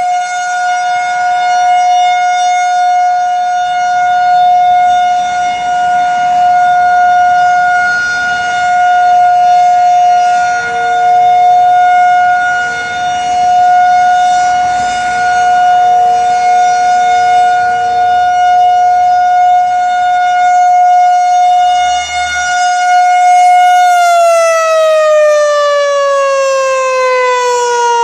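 Outdoor tornado warning siren sounding its monthly test: one steady, loud wail whose loudness swells and fades every few seconds. About four-fifths of the way through it begins to wind down, its pitch falling steadily.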